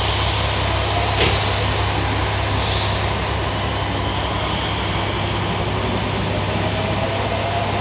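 Two-car electric train pulling out of the platform and moving off, its running noise steady. A faint whine rises from about five seconds in as the train gathers speed. A single sharp click comes about a second in.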